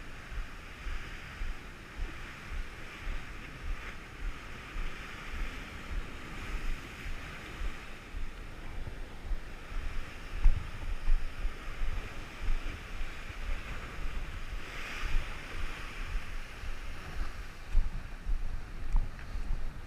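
Rough sea surf washing and breaking in repeated surges, with wind buffeting the microphone in low gusts.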